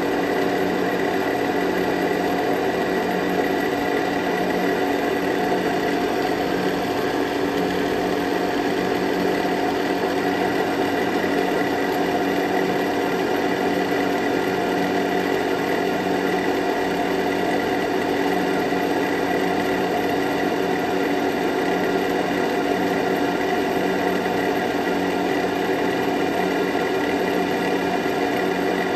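Daiwa DM-3H 5-shaku engine lathe running at steady speed, turning a metal bar in a test cut: an even mechanical whir from the headstock with several held tones.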